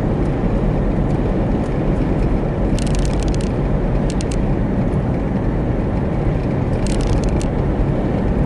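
Steady road and engine noise inside a car cruising at about 45 mph. A few brief clusters of sharp ticks come about three, four and seven seconds in.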